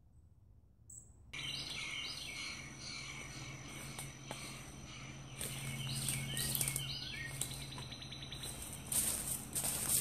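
Birds chirping and calling in woodland, with a brief fast trill about halfway through, over a low steady hum. Footsteps crunching through dry leaves and pine needles come in about halfway and grow louder near the end.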